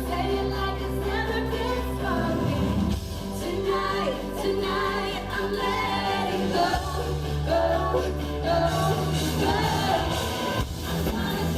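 A woman singing a pop song live into a microphone, her melody over instrumental accompaniment with held bass notes and chords.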